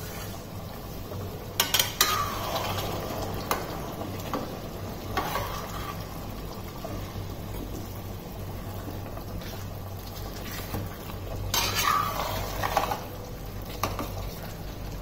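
A ladle stirring and scraping through simmering fish curry in a nonstick kadhai, with a scatter of sharp knocks of the ladle against the pan over a steady bubbling sizzle.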